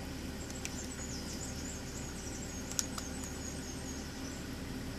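A few faint, sharp clicks of laptop keys being pressed, the clearest about three seconds in, over a steady low hum, with a faint high-pitched warbling squeak for a few seconds.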